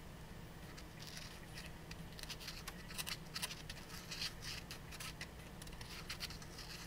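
Faint scratching and tapping of a marker tip working at the centre of a small speaker driver's paper cone, where the dust cap is being removed: a string of soft, irregular scrapes and ticks that get busier after about two seconds.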